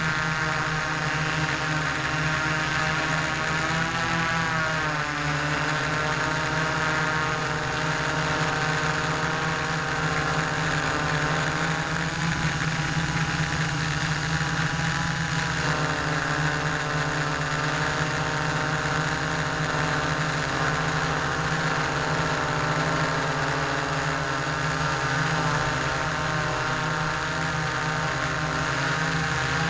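Hexacopter's six electric motors and propellers whirring steadily, picked up by a camera mounted on the craft itself. The motor pitch shifts briefly a few seconds in and again about halfway through as the motor speeds change.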